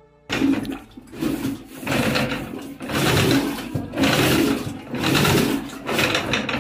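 Curd being churned into buttermilk by hand, the churning staff pulled back and forth in the pot with a rhythmic swishing stroke about once a second.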